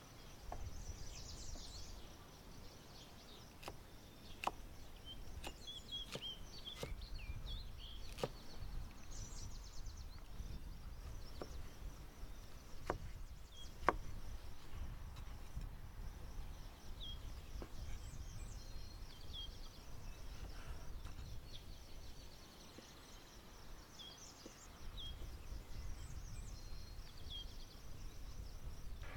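Outdoor ambience: small birds chirping now and then over a low rumble, with a dozen or so sharp clicks and knocks scattered through it.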